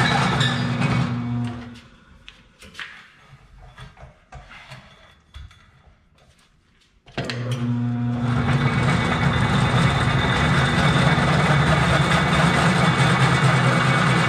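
Drill press motor humming as a bit cuts into steel pipe, then stopping about two seconds in; a few light clicks and knocks follow. About seven seconds in the motor starts again abruptly and the bit bites back into the pipe, the cutting noise building and then holding steady as the plug-weld hole is drilled out.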